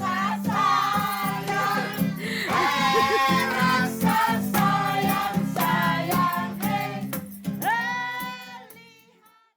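Background music with a singing voice, fading out near the end.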